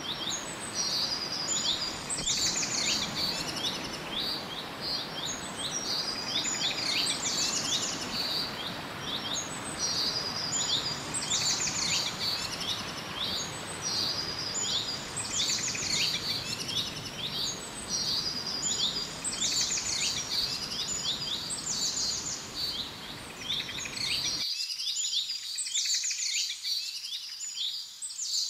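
Steady rush of a small waterfall and stream, with birds chirping over it in a quick phrase repeated over and over. The water sound cuts off suddenly about 24 seconds in, leaving only the birdsong.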